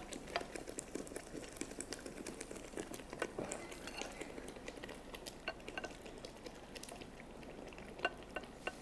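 Raw chicken pieces going into a non-stick frying pan of simmering green masala and water, with a spatula scraping and clicking against the pan. Under a faint steady bubbling hiss there are many scattered light clicks, a few sharper ones near the end.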